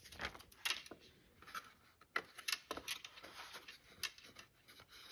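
Cardstock paper box being handled and pressed by hand: scattered short rustles, scrapes and light taps of card.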